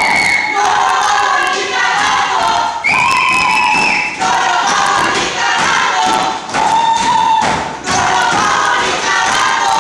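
A group of voices singing loudly together, holding several long notes, with repeated thumps throughout.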